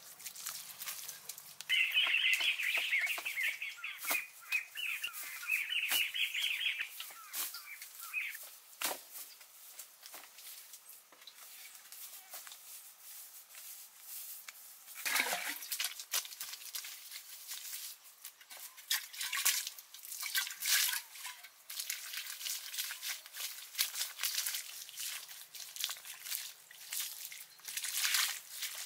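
Hands rubbing and scraping damp sand smooth over a bamboo roof: a run of short rustling scrapes, with a louder scrape about halfway through. A bird chatters rapidly for several seconds, starting about two seconds in.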